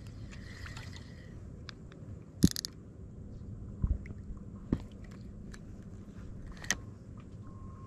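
A few sharp clicks and knocks from a spinning rod and reel being handled, the loudest about two and a half seconds in, over a low steady rumble.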